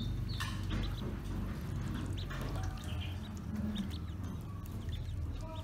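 Ducklings peeping in many short, high calls while paddling and splashing in a shallow basin of water.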